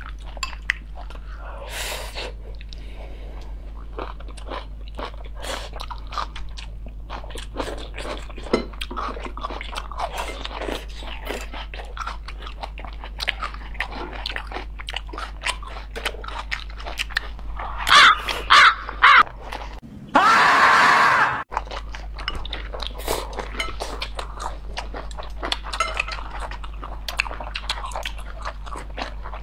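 People chewing and crunching on raw salad vegetables, with many short crisp crackles over a steady low hum. A few loud sharp bursts come about 18 to 19 seconds in, followed by a loud noisy rush lasting about a second and a half.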